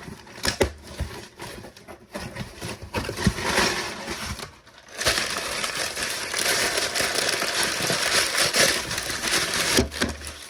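Scanner box packaging being handled and torn open. Scattered knocks and rustles for the first few seconds, then about five seconds of continuous ripping and crinkling.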